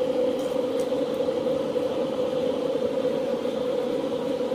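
A steady mechanical hum of a running motor, with a couple of faint soft handling noises as a raw whole chicken is pressed flat by hand on a plastic cutting board.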